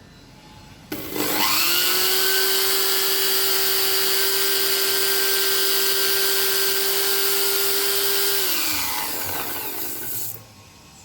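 A small electric motor spins up fast about a second in and runs at a steady high whine. Near the end it slows with falling pitch, then cuts off suddenly.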